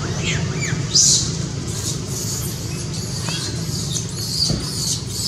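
A few short, high squeaks falling in pitch, typical of a baby macaque, near the start and again about three seconds in, with brief hissy rustles and a steady low hum underneath.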